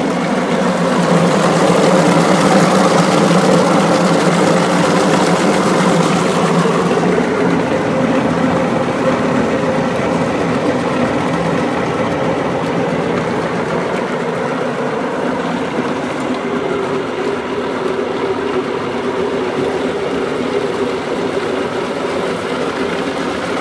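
Homemade electric feed chopper grinding apples into pulp: a steady motor hum under a rough grinding rattle. The grinding is heavier for the first seven seconds or so, then eases.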